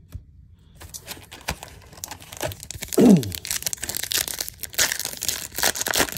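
Foil wrapper of a 2022 Topps Series 1 baseball hobby pack crinkling and tearing as it is ripped open by hand: a dense run of crackles, with a short falling squeak about three seconds in.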